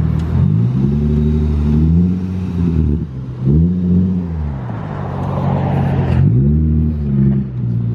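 Infiniti G37 sedan's 3.7-litre V6 through an RZG single-exit exhaust with no resonator, revving hard. The engine note climbs and falls back three times, each rise lasting about one to two seconds.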